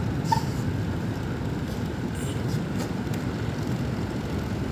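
Split air conditioner indoor unit running, its loose front cover vibrating with a steady rattling buzz and a few faint clicks. The cover's locks have not seated into their slots, so the panel is loose.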